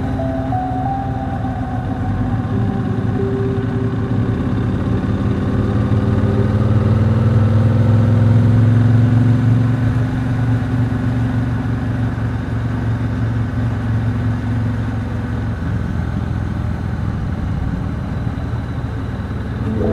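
Triumph Speedmaster's 1200 cc parallel-twin engine pulling on the move, its pitch and loudness rising gradually to about nine seconds in, then easing back to a steady cruise.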